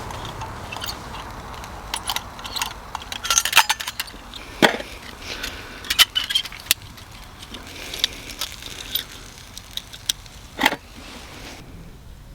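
Irregular light clinks and clicks of metal cooking gear being handled, with a few louder knocks.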